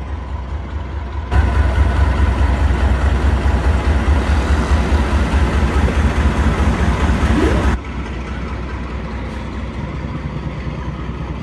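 Pakistan Railways AGE-30 diesel-electric locomotive's engine running with a steady low hum as it moves slowly past. About a second in, a much louder rushing noise starts suddenly; it stops just as abruptly about six seconds later, leaving the engine hum.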